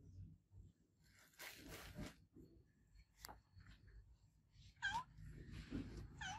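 A domestic cat meowing twice, with short downward-curving meows about five seconds in and again near the end. Brief soft rustling noises come before the meows.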